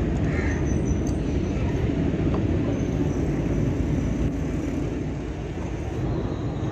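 Steady low engine rumble, with a few faint metallic clicks.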